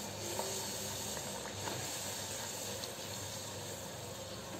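Hot oil sizzling steadily in a kadai as a club kachori deep-fries, pressed under the oil with a slotted spoon so that it puffs up, with a few faint crackles.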